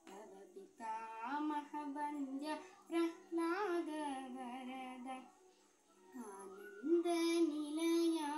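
A girl singing solo without accompaniment, holding long notes with wavering, ornamented bends in pitch, with a short break about five seconds in.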